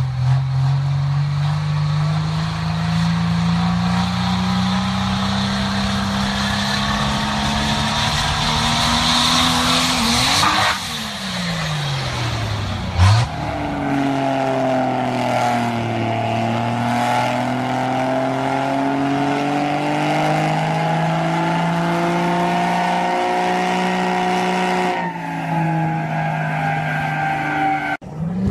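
Pickup truck engines held at high revs while the trucks spin their tyres. The engine pitch first climbs slowly for about ten seconds, then breaks off abruptly, and another engine runs hard with slow rises and falls in pitch. Near the end there are sudden changes as one clip gives way to the next.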